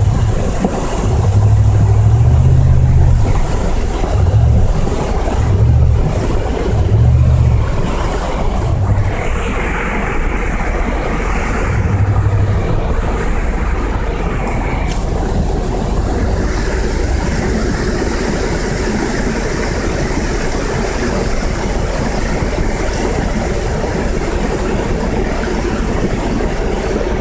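Flash-flood debris flow of muddy water and rocks rushing past, a steady loud rushing noise heard from inside a truck. Several low, heavy thumps come in the first dozen seconds.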